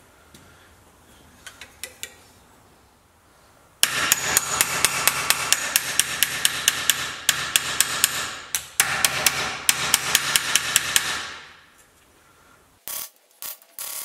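Body hammer rapidly striking sheet steel over a comma dolly clamped in a bench vise, several sharp ringing blows a second, stretching the panel to the dolly's curve. The blows come in two runs with a short break between them, then fade, and a few single knocks follow near the end.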